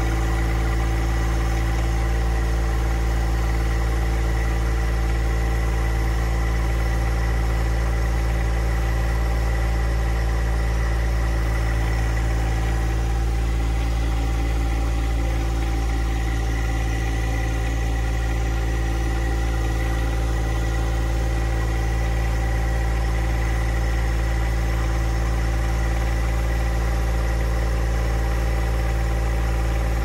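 John Deere 1025R compact tractor's three-cylinder diesel engine running at a steady, even speed while the tractor is manoeuvred.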